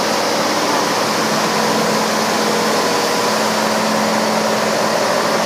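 PDQ LaserWash 360 touchless car wash spraying a car with high-pressure water: a steady hiss of spray over a steady machine hum.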